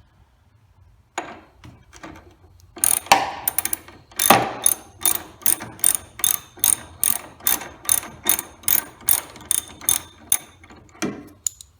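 Hand socket ratchet clicking in quick, even strokes, about two or three clicks a second, as a bolt is backed out.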